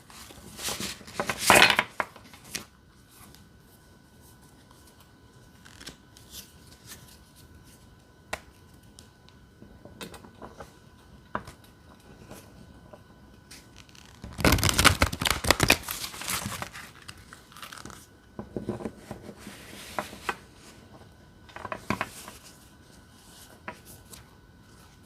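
A tarot deck being shuffled by hand: bursts of cards riffling and sliding in the first two seconds and again, loudest, about halfway through, with lighter card handling and small taps between.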